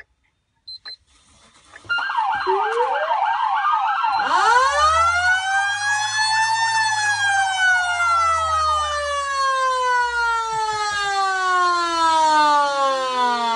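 Federal Signal Q mechanical siren winding up from about four seconds in, its motor rumbling under a rising wail that peaks and then slowly coasts down in pitch. An electronic siren's fast yelp plays alongside until about two thirds of the way through, preceded by a couple of switch clicks on the siren control head.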